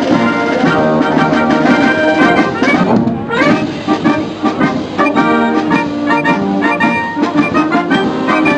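A military wind band playing: clarinets, saxophones, tenor horns and tubas together in a continuous piece.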